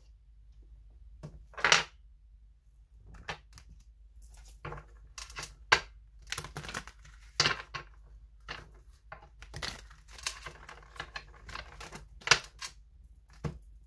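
A deck of tarot cards being shuffled by hand: irregular papery clicks and flicks of cards sliding against each other, with a few sharper snaps, and a busier run of rapid clicking near the end.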